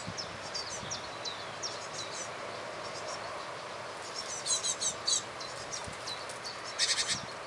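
Great tits calling with short, high chirps and quick down-slurred notes all through, with louder clusters of rapid notes about four and a half seconds in and again near the end, over a steady background rush.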